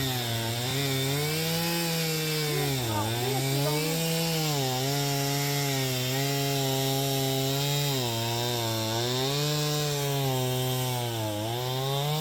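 Two-stroke chainsaw running steadily, its pitch sagging briefly every few seconds as it loads up in a cut and then recovering.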